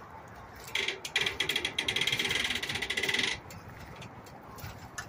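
Rapid run of metallic ratcheting clicks, a mechanism being worked at the car trailer's tongue, starting just under a second in and lasting about two and a half seconds before stopping.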